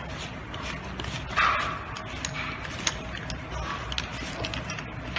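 Clicks and taps of the angle grinder's disc nut being loosened and taken off by hand, over a steady low hum, with one louder, rougher sound about one and a half seconds in.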